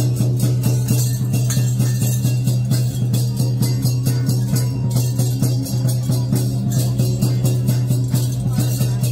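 Temple-procession percussion music: drums and cymbals beating a fast, even rhythm over a steady low hum.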